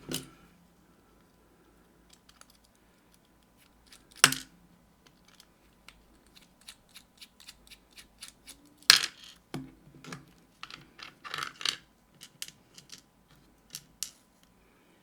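Small metal clicks and clinks of hand tools and lock parts being handled while an Abus GDS lock is taken apart. The sharpest clicks come about four seconds in and about nine seconds in, with a run of light ticks in between and toward the end.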